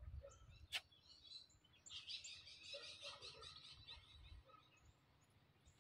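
Faint birds chirping against near silence, busiest for a couple of seconds from about two seconds in, with one sharp click about a second in.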